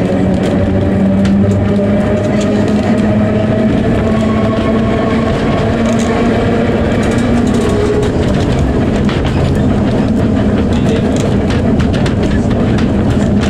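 Electric tramcar running along the line: a steady hum from its motors and gears, with a few tones that drift slightly in pitch. Clicks from the wheels over the rail joints come more often in the second half.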